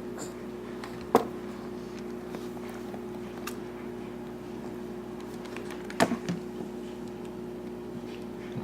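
A steady low hum, with two sharp knocks, one about a second in and one about six seconds in, the second followed by a few lighter taps.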